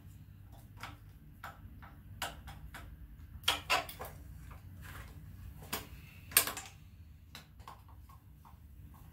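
Hand ratchet clicking in short irregular runs, with sharper metal clanks about three and a half and six and a half seconds in, as bolts are worked loose on the manifold side of an AMC 4.2-litre inline-six during teardown. A low steady hum lies underneath.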